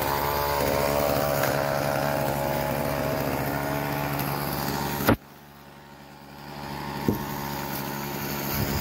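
Small two-stroke gas chainsaw engine running steadily, then stopping abruptly about five seconds in, leaving things much quieter.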